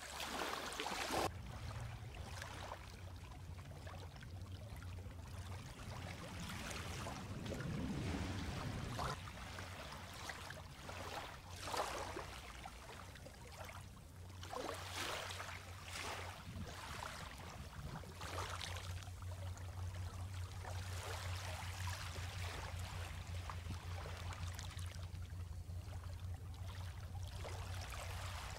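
Small, gentle waves lapping onto a sandy beach from calm, clear sea, each little wash breaking and trickling back every second or two, over a steady low hum.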